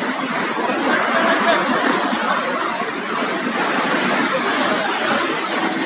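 Crowd chatter over a steady vehicle noise.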